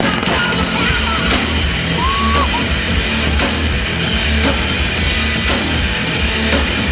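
Rock band playing live at full volume, with pounding drums and heavy pulsing bass, as heard from the crowd. A short high squeal cuts through about two seconds in.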